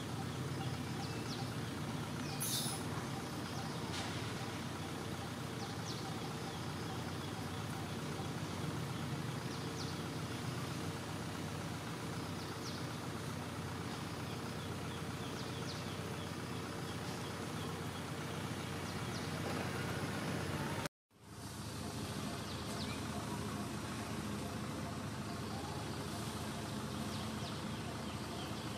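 Outdoor background: a steady low hum with short high chirps now and then. The sound cuts out completely for a moment about three quarters of the way through, then resumes.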